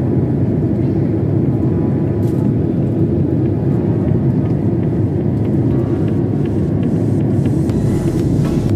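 Steady cabin noise of a Japan Airlines Boeing 767 in flight: a loud, even rumble of the jet engines and airflow, heard inside the cabin at a window seat.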